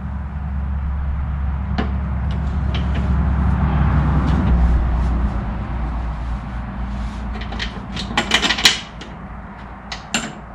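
Metal mower-deck parts and hand tools knocking and clinking during reassembly, with a short burst of clattering about eight seconds in, over a steady low hum.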